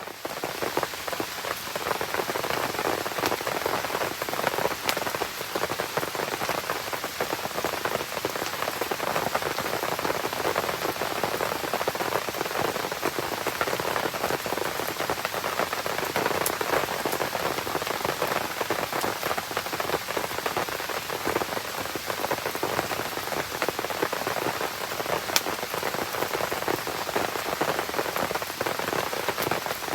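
Steady rain pattering, a dense even hiss with scattered sharp ticks over the top; it starts suddenly at the very beginning.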